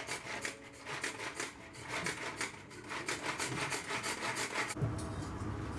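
Garlic being ground by hand: quick, rhythmic rasping strokes that stop near the end.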